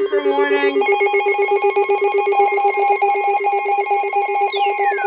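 Electronic ringing tones: a low tone trilling in rapid pulses, joined by a higher pulsing tone about a second in, like a telephone ring. Near the end a falling whistle-like sweep begins over it.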